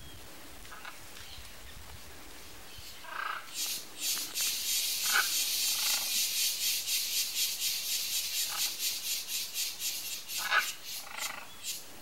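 A loud, high-pitched insect buzz, pulsing about three times a second, starts about three seconds in and stops near the end. A few faint short bird calls come through now and then.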